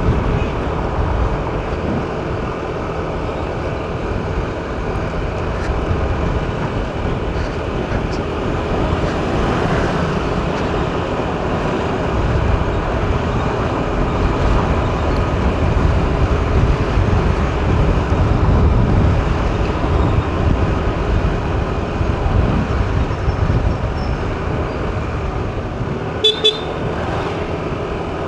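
Steady road and engine noise of a car being driven, with two quick toots of a car horn near the end.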